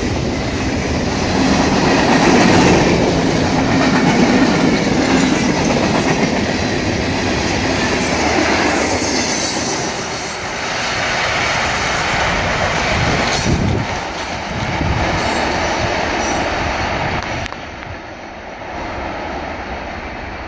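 Freight cars of a CSX mixed freight train rolling past with a steady rumble and clickety-clack of wheels over the rails, with now and then a high wheel squeal. The sound drops off clearly near the end as the train moves away.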